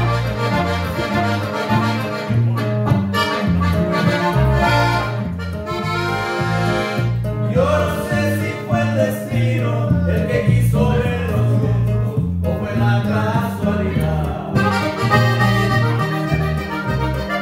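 Button accordion playing a lively norteño tune, backed by strummed guitar and bajo sexto with a heavy bass line.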